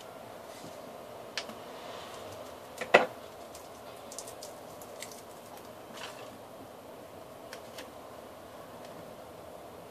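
Paper being handled and bent by hand while folding a paper airplane wing: scattered small crinkles and clicks over a steady background hum, the sharpest click about three seconds in.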